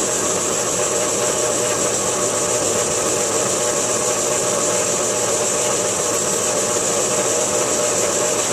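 Bench drill press running steadily with a freshly resharpened 1.0 mm drill bit cutting into a thin metal plate: a steady, even machine hum with a high hiss.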